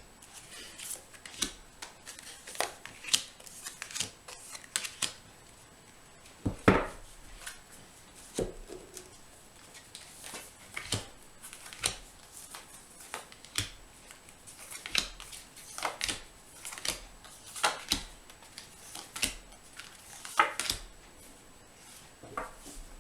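A deck of tarot cards being shuffled and handled: a string of short, sharp card swishes and flicks at irregular intervals.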